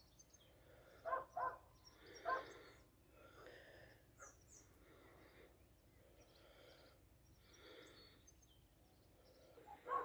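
A few short, faint animal calls, three in the first two and a half seconds, then only faint scattered outdoor sounds.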